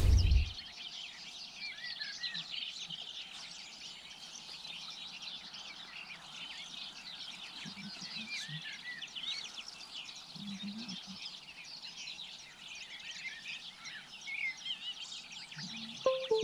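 Many songbirds singing together, a dense, unbroken mix of short high chirps and trills. A loud brief rush of noise at the very start, and a short pitched blip near the end.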